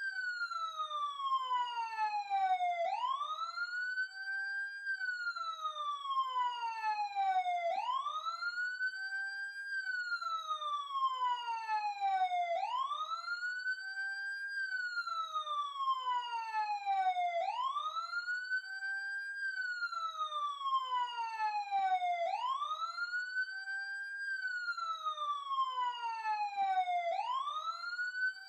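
Police car siren on a slow wail: the tone climbs to its top in about two seconds, holds briefly, then slides steadily down over about three seconds, repeating about every five seconds.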